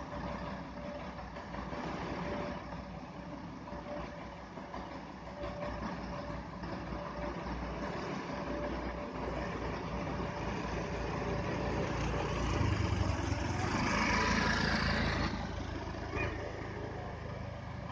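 Diesel engines of heavy concrete trucks running steadily. The sound swells louder for a few seconds about two-thirds of the way through, then settles back.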